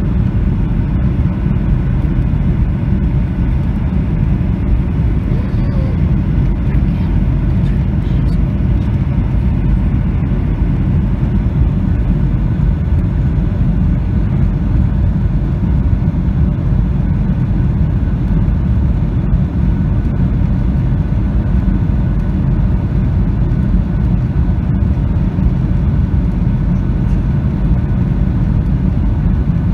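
Steady low cabin noise of a Boeing 737-800 on final approach: its CFM56 engines and the airflow over the airframe, heard from a window seat over the wing.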